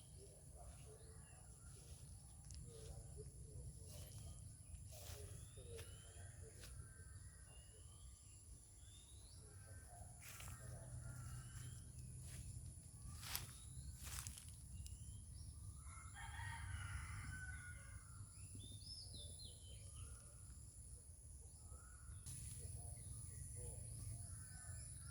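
A rooster crowing faintly about two-thirds of the way through, with small birds chirping throughout and a steady low rumble underneath.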